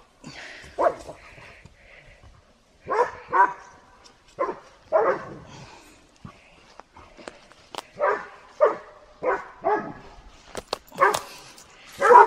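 Standard poodles barking at an otter they have cornered: about a dozen short barks at uneven intervals.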